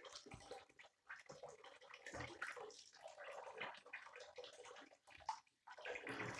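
Faint water sloshing and splashing in a sink basin as a pet monkey paddles and turns in its bath, with a thin stream from the tap trickling in.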